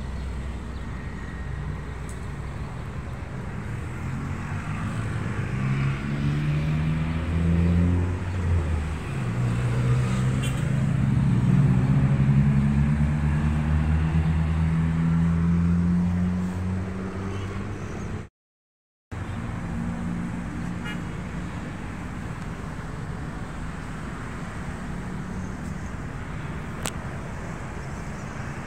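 Road traffic: a passing vehicle's engine climbs slowly in pitch and grows louder through the middle, over a steady low traffic rumble. The sound drops out for a moment about two-thirds of the way through.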